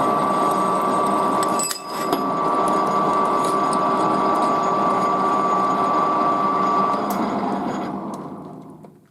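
Electric machine tool running steadily with a high whine, dipping briefly about two seconds in, then spinning down to a stop near the end.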